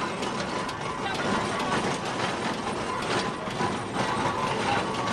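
Fowler steam ploughing engine running, with steady mechanical clicking and clanking from its gearing and motion work.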